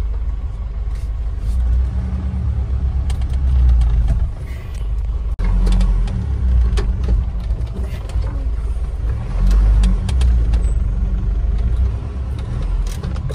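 Troller 4x4's diesel engine heard from inside the cab, a low rumble that swells and eases several times with bursts of throttle as the vehicle is manoeuvred to turn around on a dirt track, with scattered clicks and knocks.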